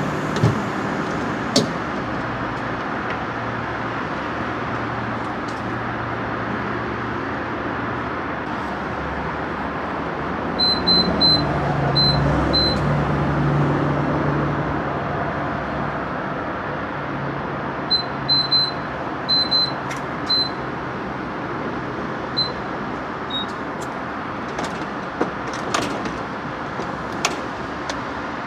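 Clusters of short, high beeps, like keys pressed on a fuel pump's keypad: one run about ten seconds in and another about eighteen seconds in. Under them is steady traffic noise with a low hum, and a few clicks near the end.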